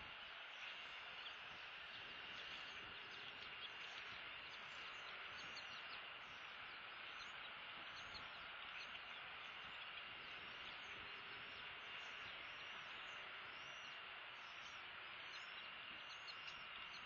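Faint outdoor ambience: a steady hissing drone with a thin, high, steady whine, and many quick high chirps scattered throughout.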